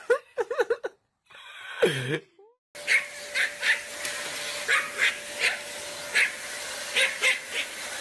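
A small dog, a Pomeranian, yipping in short sharp barks, about a dozen of them, over a steady hum with one constant tone. A dog's wavering whine-like calls come before the yips, in the first second or so.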